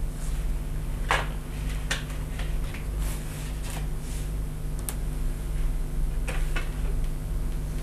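Light clicks and taps of a small screwdriver driving screws into the circuit boards of a fingerprint reader, over a steady low electrical hum.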